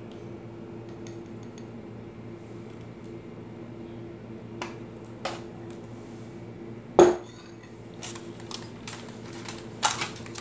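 Bowl-and-spoon clinks as a spice marinade is scraped out onto meat in a foil-lined tray, with one sharp knock about seven seconds in, louder than the rest. Toward the end, aluminium foil crinkles as hands work the paste into the meat, over a steady low hum.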